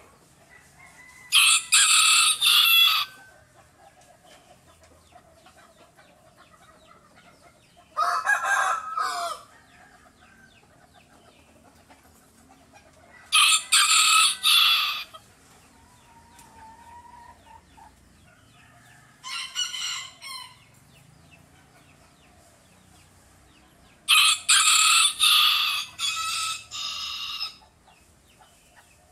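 Rooster crowing five times, with pauses of several seconds between crows. Each crow lasts one to two seconds, except the last, which is about three and a half seconds long.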